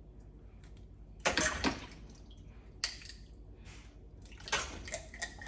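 Water splashing in a few short bursts, as when fish are handled and rinsed in a sink, with one sharp knock about three seconds in.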